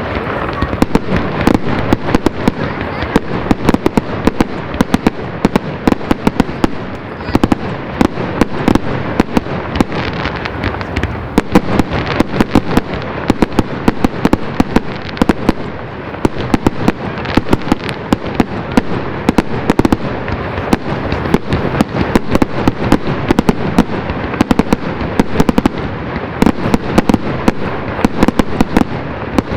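Fireworks display in full barrage: a continuous din of many sharp cracks and bangs each second, with no let-up.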